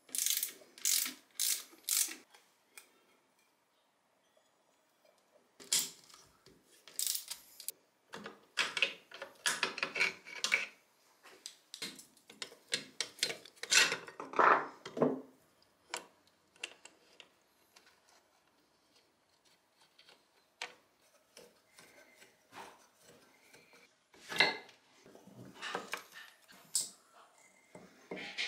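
Metal motorcycle engine parts and hand tools clinking, scraping and rattling in clusters of short knocks, with quiet gaps between, as the engine is taken apart.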